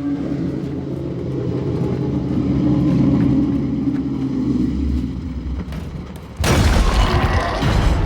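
Film sound effect: a low rumbling drone that swells and eases, then a sudden loud crash about six and a half seconds in.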